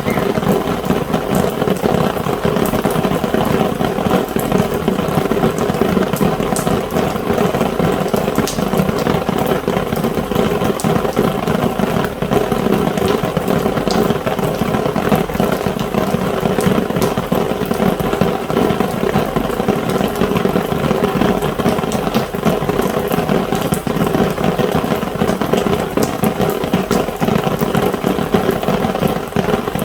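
Rain drumming steadily on an umbrella canopy: a dense, even patter with countless sharp drop ticks on top.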